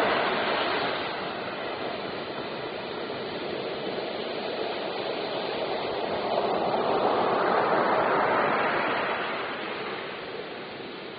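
Rushing water, a steady wash of noise that swells louder about six seconds in and eases off near the end.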